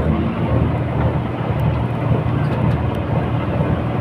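A boat engine running steadily, a low rumble with a constant hum.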